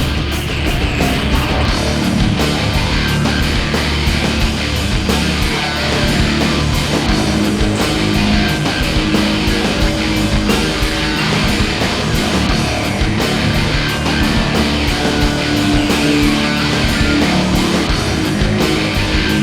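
Loud heavy rock music with electric guitar and a steady drum beat.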